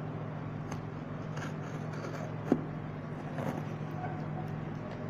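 Packing tape on a cardboard box being scored and slit with a small hand tool: a few scratchy scraping strokes, with one sharp snap of the tape about halfway through. A steady low hum runs underneath.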